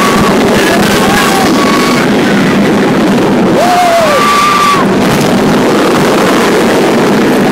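Steady wind rush buffeting the microphone as a roller coaster train runs at speed. Riders give several long, high held screams: at the start, about a second in, and two overlapping around four seconds in.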